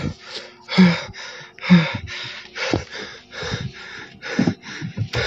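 A man's rapid, panicked breathing and gasps, about one loud breath a second, some with a short falling voiced catch.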